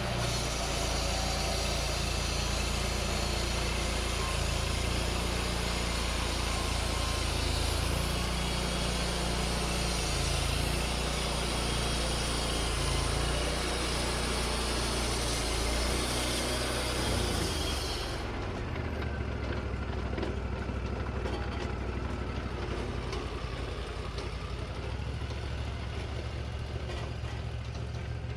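Wood-Mizer LT40 band sawmill running, its engine steady under load while the band blade cuts through a white pine log with a dense, hissing rasp. About two-thirds of the way through the hiss stops abruptly, as the blade comes out of the cut, and the engine runs on.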